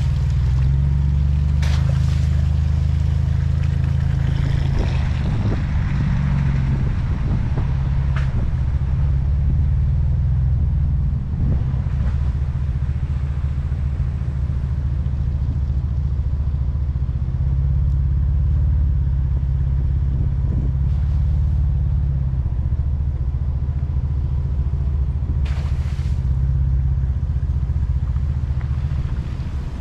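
Ford Bronco engine running at low revs on an off-road trail, a steady low rumble, with a few knocks and rattles from the vehicle going over rough ground.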